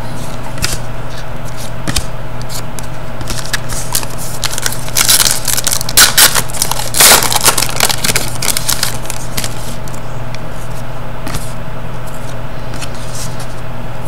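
Hands flipping and shuffling through Panini Pinnacle hockey trading cards, with short clicks and snaps as the cards slide past each other, and louder crinkling from the pack's foil wrapper from about five to seven and a half seconds in. A steady low hum runs underneath.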